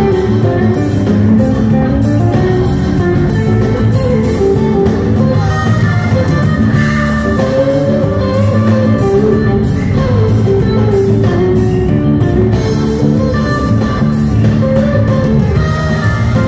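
Live band playing a mid-tempo song: electric guitar over Hammond organ, bass guitar and drum kit, at a steady loud level.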